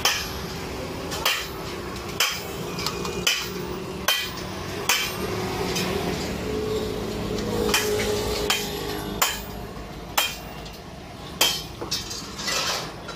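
Hammer blows on metal in a blacksmith's workshop, ringing strikes about one a second with a pause of a couple of seconds midway, over a steady low hum.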